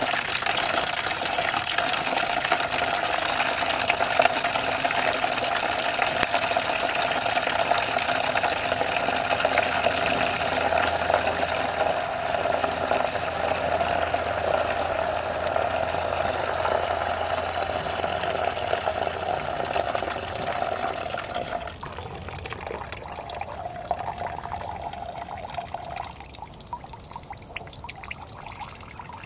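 Engine coolant pouring in a steady stream from a Kubota Bulltra B1-14 tractor's radiator drain and splashing into a plastic basin. About three quarters of the way through it turns quieter, a thin trickle falling into the liquid.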